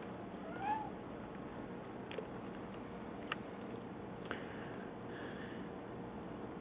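A cat gives one short meow about a second in, over a steady hiss, followed by a few faint clicks.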